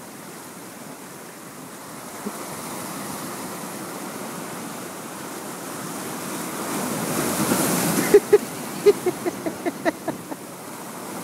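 Sea surf washing and breaking against rocks, swelling to a loud wave break about two thirds of the way through. Near the end, a quick run of short, sharp sounds.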